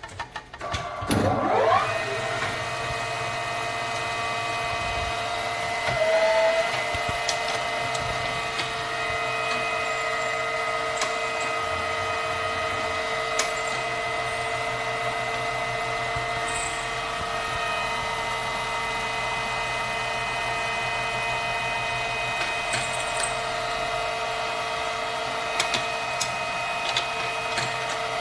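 Milling machine spindle motor spinning up with a rising whine over the first couple of seconds, then running at steady speed with an even, multi-tone hum and a few light clicks.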